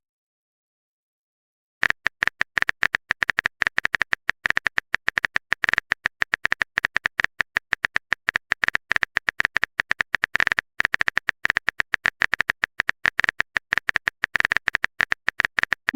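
Rapid, irregular clicks of a keyboard typing sound effect, starting about two seconds in, with one brief pause around the middle.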